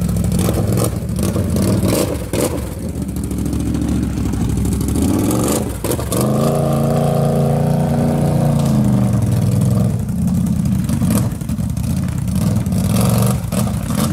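ATV engine running under throttle. It revs up about six seconds in, holds high for a few seconds and drops back, with scattered knocks and clatter over it.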